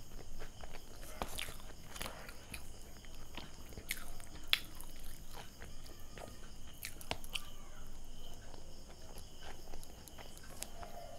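Close-miked chewing of pav bhaji, soft bread and mashed vegetable curry eaten by hand: wet mouth smacks and many small clicks, the sharpest about four and a half seconds in.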